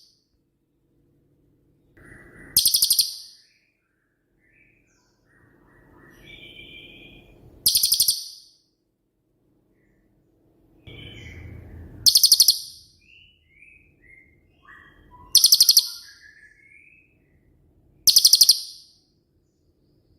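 Cililin bird singing: five loud, very rapid rattling trills, each about half a second long and a few seconds apart, with soft short whistled notes and quiet chatter in between. The trills are the bird's 'shots'.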